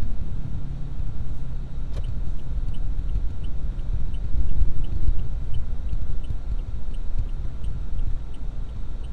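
Low, steady rumble of a vehicle crawling in city traffic. From about two seconds in, a light, regular ticking runs at roughly two ticks a second.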